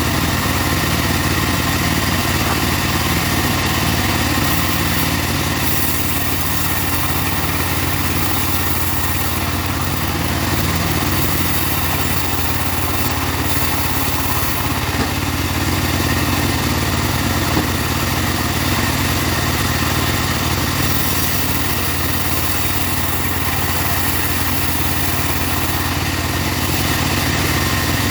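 Mobile bandsaw sawmill running, its engine and saw making a loud, steady drone with no breaks.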